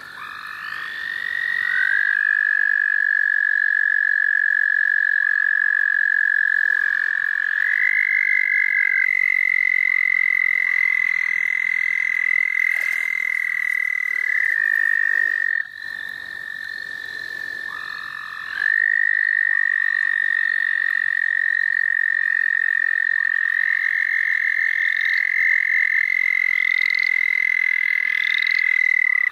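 A chorus of American toads trilling: several long, steady trills at slightly different pitches overlap, each held for several seconds. The chorus thins for a few seconds past the middle, then a new trill comes in.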